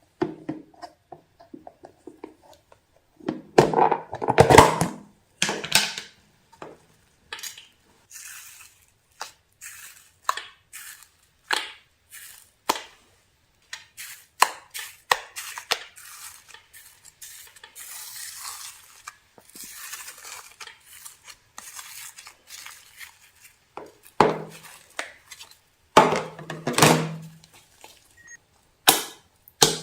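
Irregular clicking, tapping and scraping of a utensil against a mixing bowl as slime ingredients are stirred, with louder clusters about four seconds in and again near the end.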